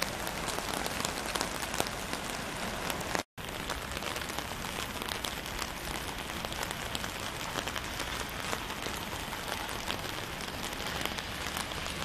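Steady rain falling on wet ground and standing floodwater, an even hiss with many small drop clicks. The sound cuts out completely for an instant about three seconds in.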